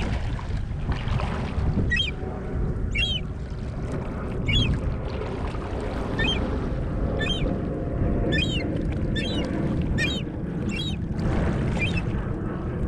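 Seagulls calling: about ten short, sharp cries spread through the stretch, over a steady low rumble.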